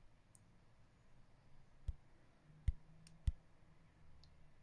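Three faint sharp clicks, spaced about a second apart: handling noise from a hand holding and turning a smartphone.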